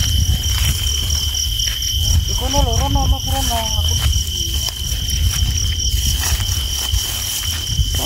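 Insects trilling on one steady high pitch without a break, over a continuous low rumble. A faint voice is heard briefly about two and a half to four seconds in.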